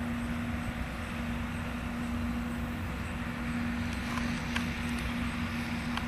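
Engines of a Pik Rite 290 tomato harvester and its accompanying tractors running steadily under harvest load: a constant drone with an even hum. A few faint clicks come about four seconds in.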